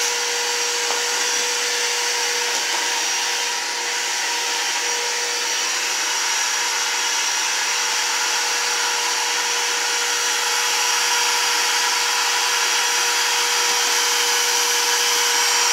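Husky wet/dry shop vacuum running steadily: a constant rushing motor noise with a steady whine, growing slightly louder in the second half.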